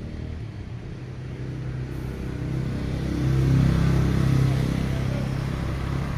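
A motor vehicle's engine running with a low, steady rumble, growing louder to a peak around the middle and then easing off.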